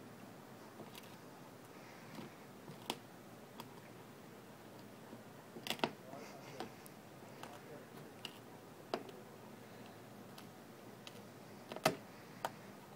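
Chesapeake Bay retriever chewing a wooden stick: scattered sharp cracks and crunches as the wood splinters between its teeth, the loudest about six seconds in and again near the end.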